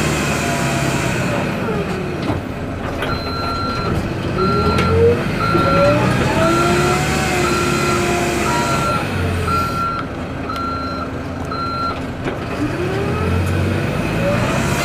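XCMG backhoe loader's diesel engine running under load, its pitch rising and falling as it works. Its reversing alarm beeps about once a second from about three seconds in until near the end, as the machine backs up.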